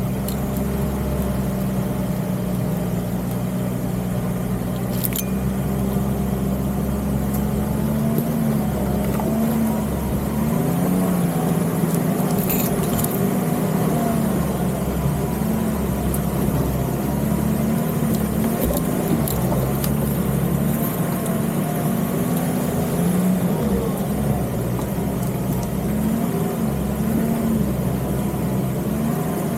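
Nissan Patrol Y61 off-roader's engine running at low revs under load, its pitch rising and falling gently as the throttle is worked, with a few sharp knocks from the vehicle about five and twelve seconds in.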